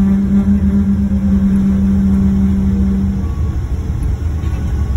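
Cabin noise inside a Boeing 777-300ER on final approach: a steady low rumble of engines and airflow with a humming tone that stops about three seconds in, leaving a rougher rumble.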